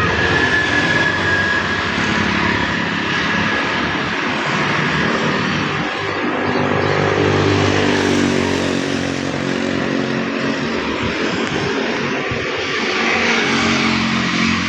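Propeller aircraft engine droning as the plane flies over, growing loudest about halfway through and then easing off.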